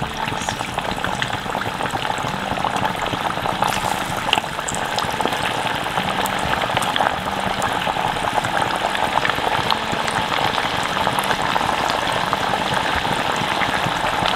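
Sooji-and-potato puris deep-frying in hot oil in a stainless-steel pan: a steady, dense sizzle and crackle as the dough rounds are slipped into the oil one after another.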